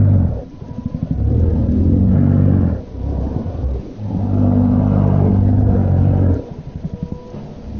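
Deep, low animal bellows presented as the call of the extinct giant crocodilian Purussaurus brasiliensis: two long bellows of about two seconds each, with a pulsing, rattling growl between them and after the second.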